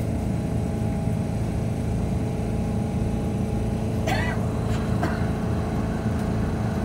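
Keihan Ishiyama Sakamoto Line tram standing at a platform, its onboard equipment giving a steady low hum and rumble with a few steady tones. A short sound with a wavering pitch comes about four seconds in, then a click.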